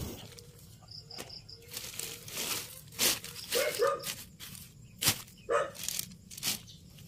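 Clear plastic sheeting over a mushroom growing bed rustling and crinkling in sharp separate strokes as it is lifted and pressed back down by hand. A dog barks briefly a few times in the background.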